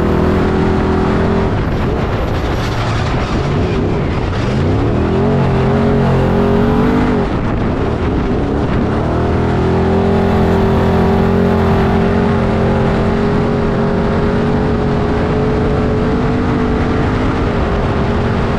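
Off-road race vehicle's engine running hard. The pitch drops, then climbs sharply about four seconds in, falls away again, and then holds steady at high revs for most of the second half before easing near the end.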